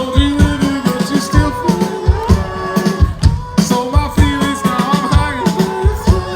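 A rock band playing live: a drum kit hammers out a busy, steady rhythm under gliding melodic lines.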